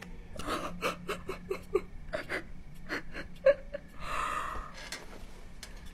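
A woman crying quietly into her hands: short gasping, whimpering sobs in quick succession, then a longer shaky breath out near the middle.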